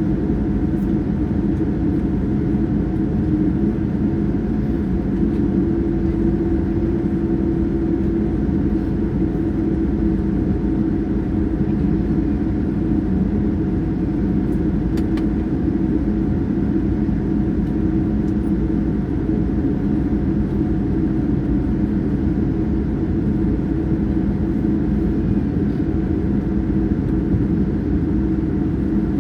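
Steady roar of jet engines and rushing air heard inside the cabin of a Boeing 787-9 airliner, with a low, even hum under it and no change.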